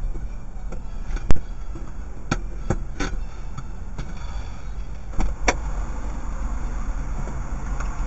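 Steady low rumble of cars and road traffic heard from inside a car, with one sharp knock about a second in and a few fainter clicks after it.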